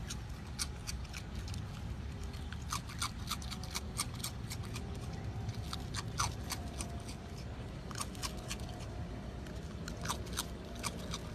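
Raccoon crunching dry ring-shaped cereal: irregular sharp crunches, several a second, over a low steady rumble.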